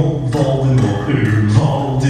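Loud music with low, chant-like singing, the sustained notes shifting every half second or so.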